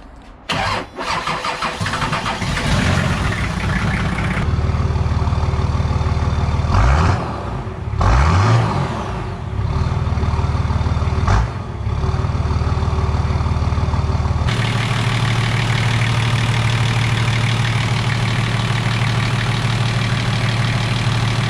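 Nissan TD42T inline-six indirect-injection turbo-diesel cranking and firing up on its first start after a bottom-end rebuild. It is blipped up and back three times, then settles into a steady idle.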